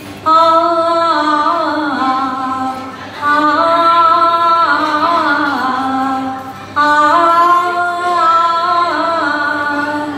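Women singing a Bengali song in long, held, gliding notes. The singing comes in three phrases, each beginning after a brief breath pause.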